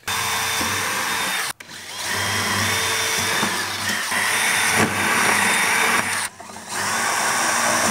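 Cordless drill running under load in three long bursts, with short pauses about a second and a half in and near the end.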